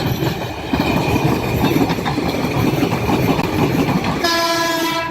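Electric train running on the track with a loud rumble and rattling clatter; about four seconds in its horn sounds one steady tone for about a second.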